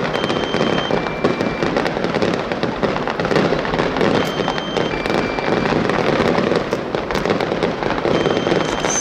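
Aerial fireworks display: a dense, continuous crackling of many shell bursts and sharp pops, without a pause.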